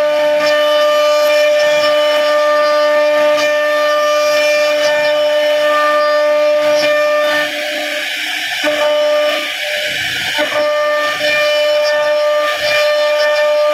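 CNC router spindle running with a steady high whine while its bit cuts a carved relief into a wooden panel. The cutting noise dips briefly twice, around eight and ten seconds in.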